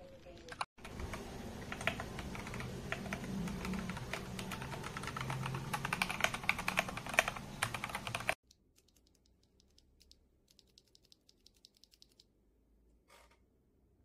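Typing on a mechanical keyboard: a fast, dense clatter of keystrokes that cuts off suddenly about eight seconds in, followed by faint, scattered key clicks.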